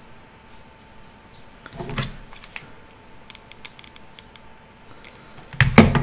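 Light handling sounds of a wooden clothespin and its paper wings: a short rustle about two seconds in and a few small clicks, then a louder knock near the end.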